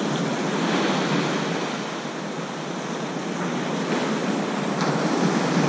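Ocean surf breaking on a sandy beach: a steady wash of waves that eases and then swells louder as a wave comes in near the end.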